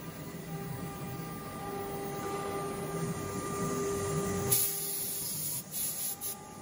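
UG-1325 woodworking CNC router's spindle running with its bit cutting an engraving groove into MDF: a steady whine over cutting hiss. About four and a half seconds in a brighter, louder hiss rises, then the sound dips and wavers near the end.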